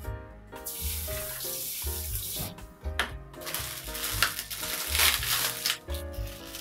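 Background music with a steady beat, over an even hiss that starts about half a second in and fades before the end.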